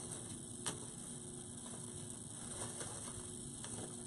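Faint handling noise from artificial greenery stems being set into a floral door hanger, with a light click about a second in and a few fainter ticks later.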